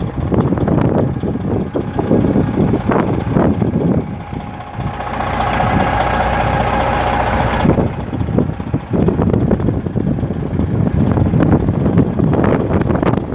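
Semi truck's Detroit Diesel Series 60 turbo diesel idling under heavy wind buffeting on the microphone. For a few seconds near the middle the buffeting drops and a steady whine and hiss come through.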